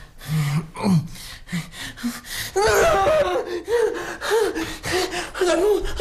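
A man in the grip of a nightmare. He groans in his sleep at first. From about halfway he breaks into rapid, panicked gasping cries, about two a second, each rising and falling in pitch.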